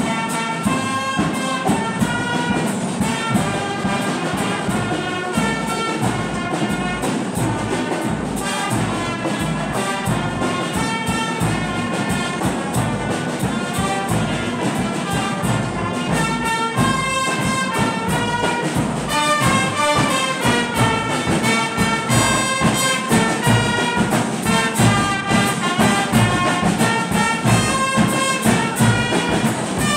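Brass band of trumpets and trombones playing a lively piece with a steady beat, growing a little louder in the last third.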